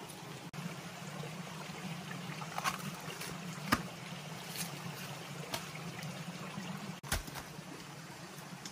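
Steady trickling of a small forest stream, with a handful of sharp separate knocks from a machete striking wild banana trunks, the loudest a little under four seconds in.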